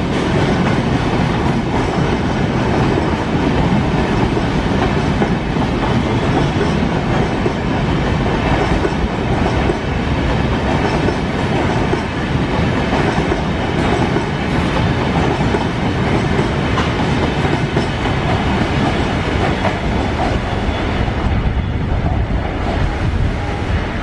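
Coaches of a passing express train rolling by, wheels clattering steadily over the rail joints.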